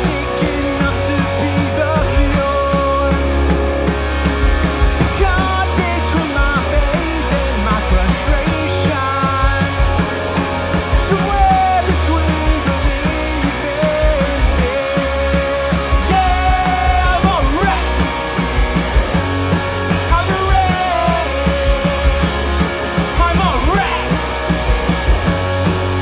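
Punk rock band playing live, with electric guitars, bass guitar and a drum kit driving a fast, steady beat, and a man singing over it.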